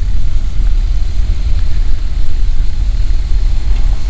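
Honda NC700X motorcycle's parallel-twin engine running as the bike rolls slowly, heard from the handlebar camera as a steady, heavy low rumble.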